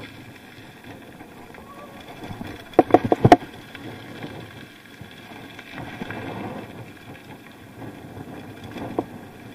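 Bicycle rolling along with steady tyre and wind noise, broken by a quick cluster of sharp rattling knocks about three seconds in and one more knock near the end.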